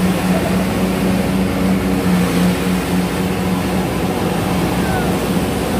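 Excavator's diesel engine running at a steady pitch while the machine digs and swings a bucket of soil, heard close from the operator's cab.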